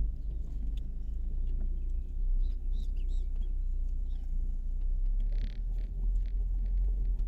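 Low, steady rumble of the Chevrolet Cobalt's engine running, with a few faint high chirps and light clicks over it.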